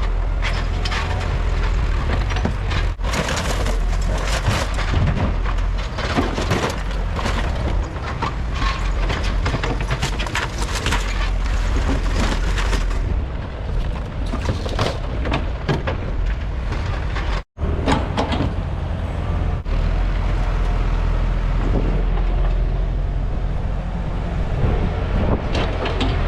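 Heavy diesel equipment running steadily at a demolition site, with irregular knocks, scrapes and crunches of debris being broken and moved.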